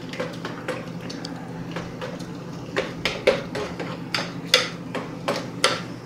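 Metal spoon stirring a thick cocoa, sugar and water mixture in a stainless steel pot, clinking and scraping against the pot's sides in an irregular string of clinks, with a few louder knocks in the second half.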